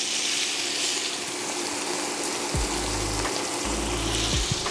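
Diced onion dropped into hot bacon fat in a cast-iron skillet, sizzling steadily with a loud, even hiss. A few low thumps come in the second half.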